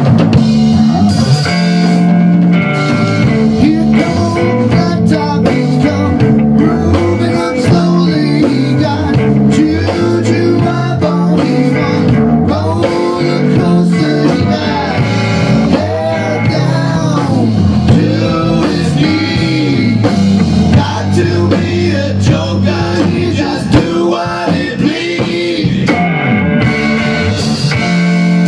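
A small rock band playing live: electric guitar, electric bass and drum kit together, with bending guitar notes in the middle.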